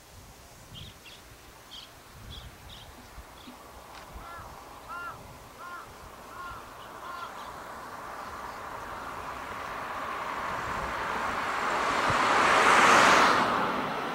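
Small birds chirping, then a crow cawing about six times in a row; after that a vehicle passing close by, its rushing noise swelling to the loudest point near the end and fading away.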